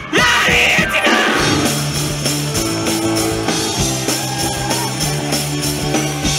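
Live rock band playing: electric guitars, bass and drum kit, with a bright, crash-like burst at the very start and held bass notes after it.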